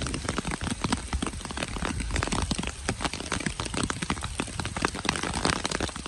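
Heavy rain falling, with dense close raindrop ticks, and a loaded truck's diesel engine rumbling low underneath.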